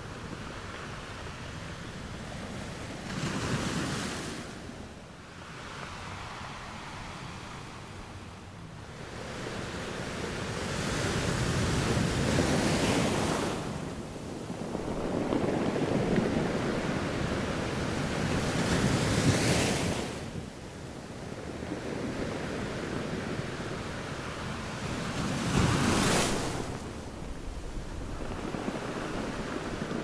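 Small sea waves breaking and washing up a sandy beach, the surf swelling and easing every six or seven seconds, with a sharper crash near the end.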